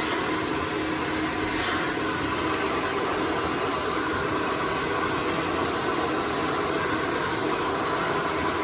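Handheld hair dryer blowing steadily, a constant rushing hiss with a faint motor hum.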